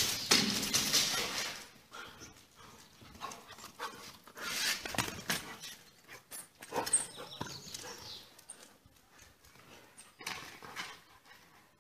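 A dog moving about and scuffling, with scattered clicks and rustling noises that are loudest in the first second and a half and again around five seconds in.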